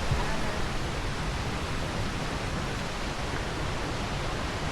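Steady, even rush of fast-flowing mountain water, the sound of a waterfall or cascade on a rocky creek.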